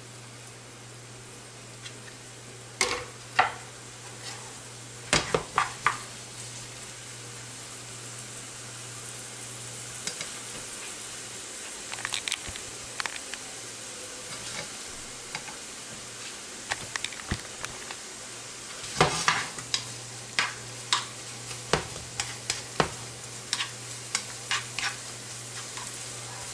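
Chopped onion, ginger and garlic sizzling steadily in hot oil in a pan, with a utensil clicking and scraping against the pan as they are stirred, in bursts about three seconds in, around five to six seconds, and again from about nineteen to twenty-five seconds.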